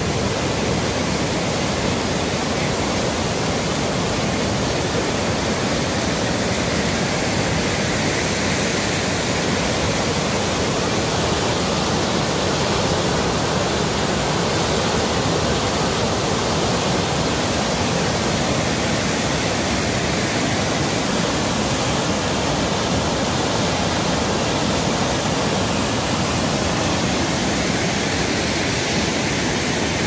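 Waterfall crashing into a churning pool of whitewater: a steady rush of falling water that does not change.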